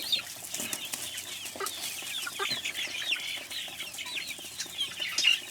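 A flock of backyard chickens clucking and chirping, many short high calls overlapping one another, with scattered light clicks.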